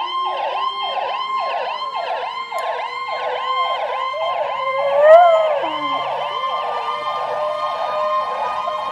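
Ambulance siren on a fast yelp, rapid rising-and-falling sweeps about three times a second. About five seconds in, a louder tone briefly rises and falls over it.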